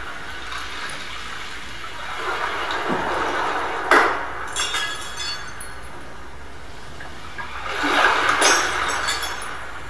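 Electroacoustic score of rushing, water-like noise that swells and fades twice. A sharp knock tops the first swell, and high glassy clinks follow each swell.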